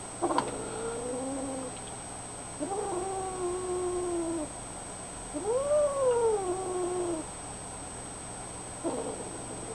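Kittens meowing: three long, drawn-out meows, each one to two seconds long, the third rising and then falling in pitch, and a short meow near the end.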